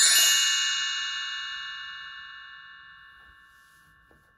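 A single bright chime ringing out, its many high tones fading away slowly over about four seconds.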